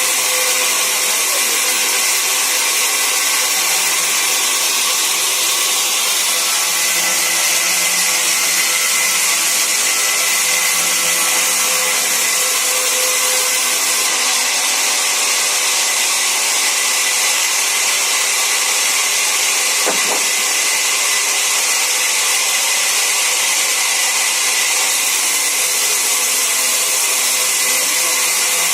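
Sawmill saw running steadily as wood is cut: a loud, even hiss with a faint high whine. There is one brief click about twenty seconds in.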